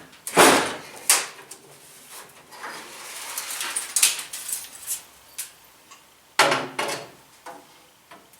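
A string of sharp knocks and clanks from tools and metal parts being handled: the loudest comes a little under half a second in, and another pair of hits about six and a half seconds in, with quieter rattles between.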